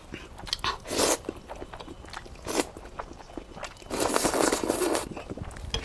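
Close-miked eating of instant noodles: mouth noises and chewing, broken by short noisy slurps about a second in and two and a half seconds in, and a longer slurp lasting about a second near the end.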